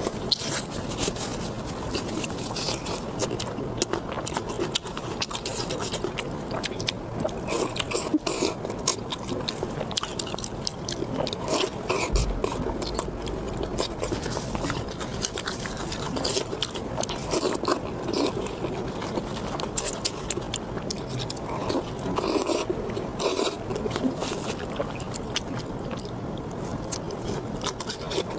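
Close-miked eating: steady chewing and biting with many short, sharp crunchy clicks and mouth sounds.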